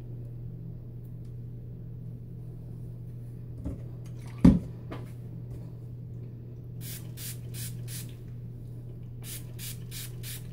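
Fine-mist spray bottle squirted in quick short sprays, about three a second: one run of four or five sprays, a pause, then another run near the end. Before the sprays there is a single dull thump, the loudest sound.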